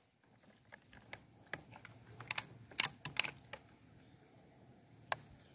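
A series of short, sharp clicks and knocks from a PCP air rifle being handled and swung onto a new aim point after a shot. They are scattered and uneven, bunched in the middle, with one more near the end.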